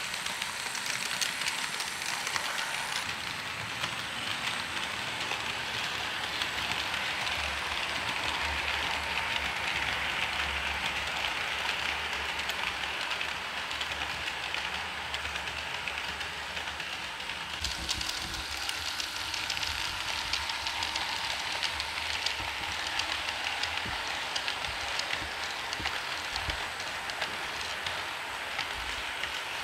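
Märklin H0 model freight train running on its track: a steady whir from the electric locomotive's motor and the rolling of the wagons' wheels, with a stream of fine clicks over the rail joints. A low hum grows stronger in the middle as the train passes close.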